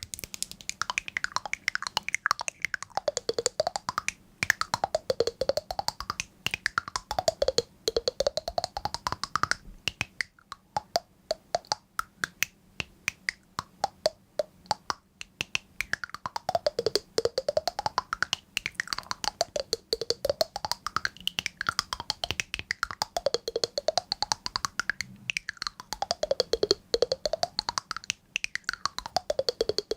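Rapid, dense crisp clicking and tapping, with a tone that sweeps down and back up every couple of seconds. The clicks thin out for a few seconds around the middle.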